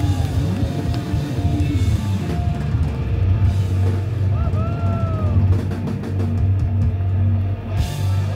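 Live rock band playing: electric guitar, electric bass, drum kit and keyboards, with heavy bass. A note slides up and back down around the middle.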